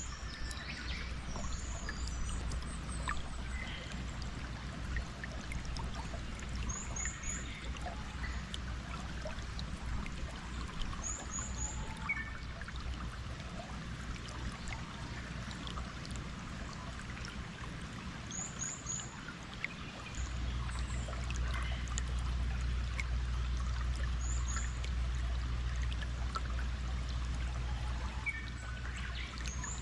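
Flowing water running steadily, with birds giving short high chirps in small clusters every few seconds. A low rumble underneath grows louder about two-thirds of the way through.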